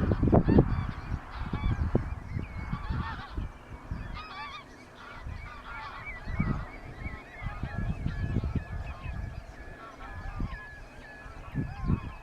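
A flock of geese calling, many overlapping honks throughout. Irregular low rumbles come and go under the calls, loudest right at the start.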